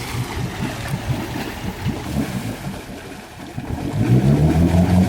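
Four-wheel-drive car engine: a low rumble with irregular knocks, then the engine revs up hard about four seconds in and holds there.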